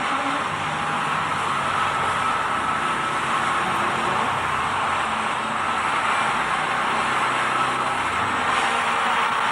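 Heavy machinery running steadily: a constant engine-and-machine noise with a faint high whine, without any change in pace.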